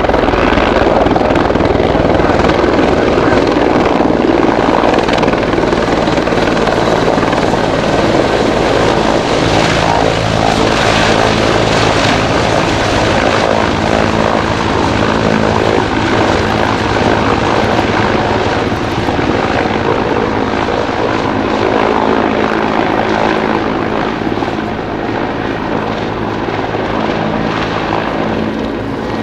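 Mil Mi-24V Hind helicopter's rotor and twin turboshaft engines running loud and steady, with a continuous rotor beat, easing off slightly near the end.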